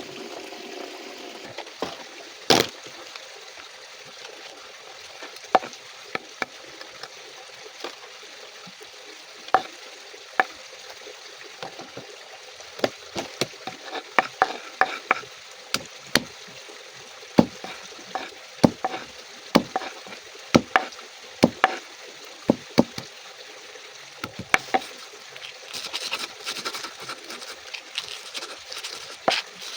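Food frying in a pan, a steady sizzle, with sharp clicks and taps of stirring that come more often in the second half.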